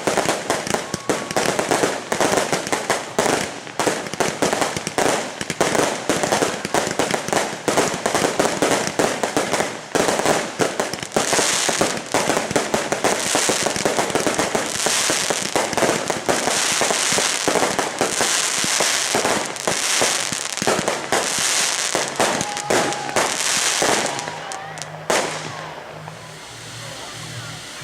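Fireworks going off in a fast, dense barrage of bangs and crackles, with a run of hissing, crackling bursts about every second and a half in the second half. The barrage stops abruptly near the end, leaving music.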